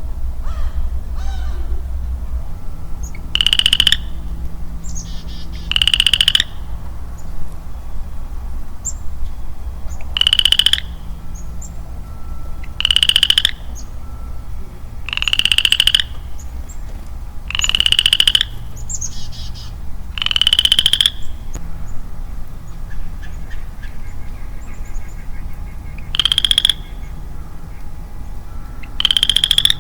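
A lone male western chorus frog calling: about nine rising, rapidly pulsed trills, each under a second long, spaced two to three seconds apart with a longer pause past the middle.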